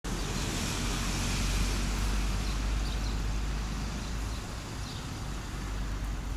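Steady low background rumble of distant road traffic.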